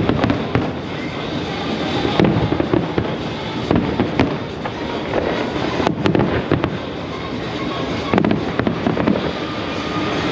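Fireworks display: shells bursting with sharp bangs every couple of seconds over constant crackling, with music playing along.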